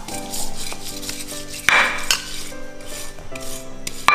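A metal utensil scraping and clinking against a pot or basin while chili bean paste is scooped, loudest twice: once near the middle and once at the end. Background music plays throughout.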